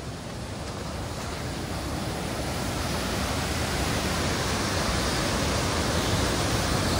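Turbulent river water rushing and churning white below a barrage's gates, a steady rushing that grows louder over the first few seconds, then holds.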